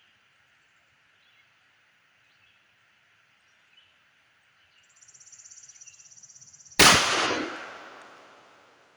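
A single .45 ACP pistol shot from a Tisas M1911, very loud and sudden about two-thirds of the way in, with its echo fading over roughly two seconds.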